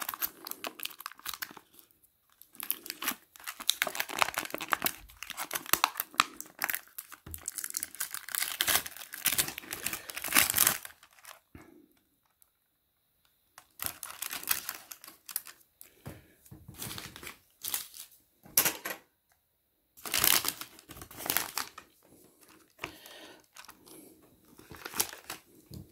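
Plastic food packaging and paper wrappers crinkling as they are handled and opened: a sauce sachet and a clear plastic tub with a peel-back lid. It comes on and off, with a couple of short pauses.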